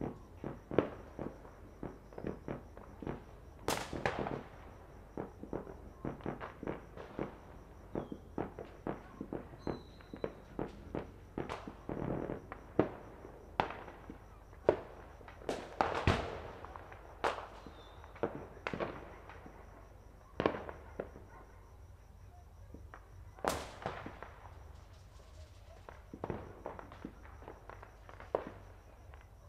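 Fireworks and firecrackers going off at varying distances: an irregular, near-continuous string of bangs and cracks, each trailing an echo. A few much louder blasts stand out, and the popping thins out near the end.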